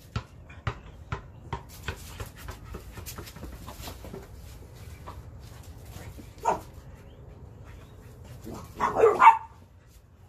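A basketball bouncing on concrete, dribbled in quick even knocks about twice a second, fading out after the first couple of seconds. Near the end a brindle pitbull puppy barks in a short burst, the loudest sound.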